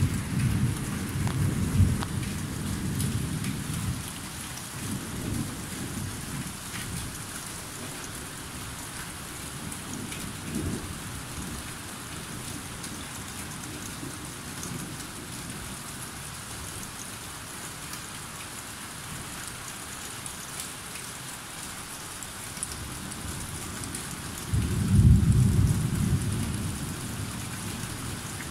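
Steady rain hissing through a thunderstorm, with rolling thunder. It rumbles through the first few seconds, gives fainter rumbles twice after that, and a loud peal of thunder rolls a few seconds before the end.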